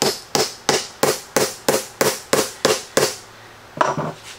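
Claw hammer tapping a steel pinch dog into the end grain of two clamped boards: about ten quick, even blows, roughly three a second, stopping about three seconds in. A brief clatter follows near the end.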